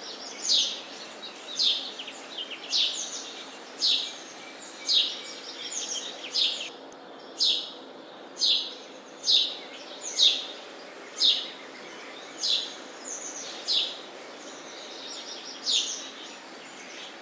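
Sparrow chirping over and over, about one short chirp a second, each falling quickly in pitch, over a steady background hiss.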